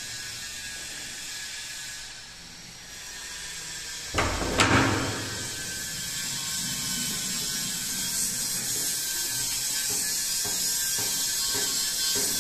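A door bolt or latch clacks and a door is pushed open with a short rattle about four seconds in. Afterwards there is a steady outdoor hiss with a few faint clicks.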